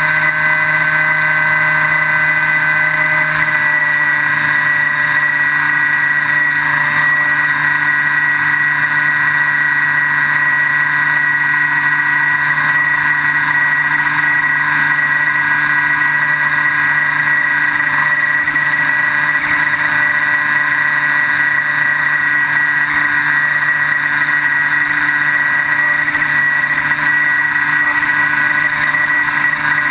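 Electric brushless motor and propeller of a Skywalker V3 FPV wing in flight, heard from the onboard camera: a loud, steady whine over a hiss of noise, its pitch shifting slightly about three seconds in.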